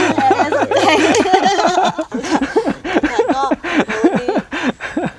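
A small group of people laughing together, several voices at once in short chuckling bouts. The laughter is densest in the first two seconds and then trails off into lighter chuckles.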